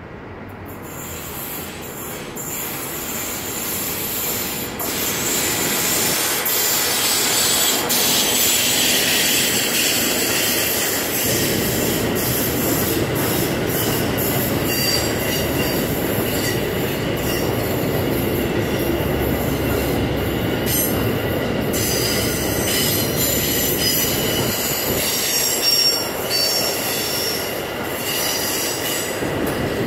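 An FS E633 electric locomotive hauling a container freight train, growing louder over the first several seconds as it approaches and passes. The container wagons then roll steadily past, with a high-pitched wheel squeal through the second half.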